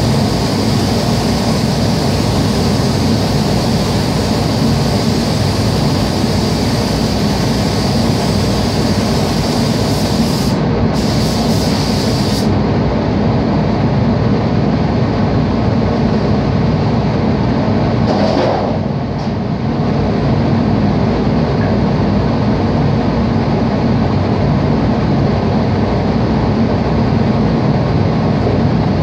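Paint spray booth's air handling running as a loud, steady rush, with the hiss of a compressed-air spray gun on top that cuts off about twelve seconds in.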